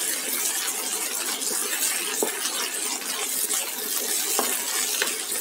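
Sardines with onions and garlic sizzling in hot oil in a wok, stirred with a wooden spatula that knocks against the pan a few times.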